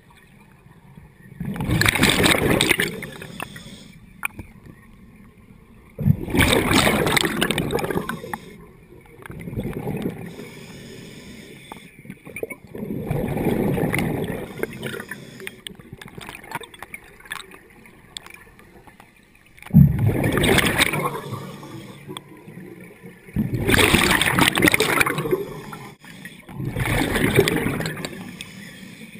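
Scuba diver breathing through a regulator underwater: about seven loud bursts of exhaled bubbles gurgling past the camera, one every four to six seconds, with quieter hiss between breaths.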